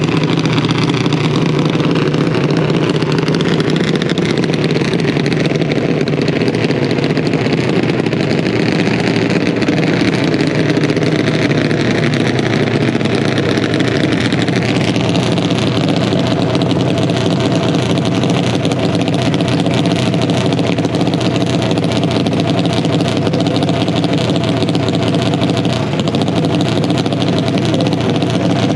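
Junior dragster's single-cylinder engine idling steadily at the starting line.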